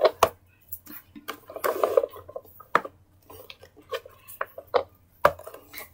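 Hard plastic of a toy convertible and toys being handled: irregular light clicks and knocks, with a brief rustle about two seconds in.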